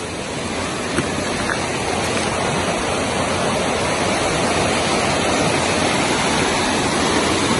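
Swollen river of muddy floodwater rushing fast past the bank, a steady loud rush of water that grows a little louder over the first couple of seconds. The river is running high, its flow raised by heavy rain upstream.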